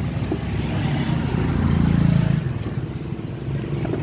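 An engine running steadily, swelling louder about one and a half seconds in and easing off again, with a few light clicks.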